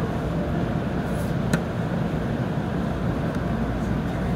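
Steady low rumbling noise inside the cab of a standing JR Central 313 series electric train, with one sharp click about a second and a half in.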